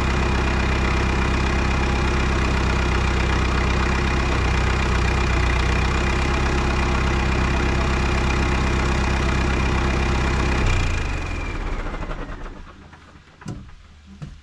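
Tractor diesel engine idling steadily, then shut off about eleven seconds in. A high whine falls away over a second or two as the engine runs down, followed by two light knocks.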